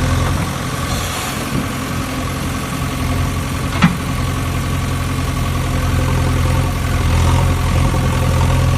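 JCB excavator's diesel engine running steadily with a low hum, rising slightly in level in the later part. One sharp click or knock about four seconds in.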